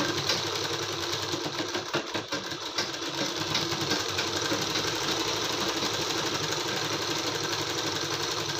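Sewing machine running steadily at speed, stitching a blouse side seam as the cloth is fed under the needle.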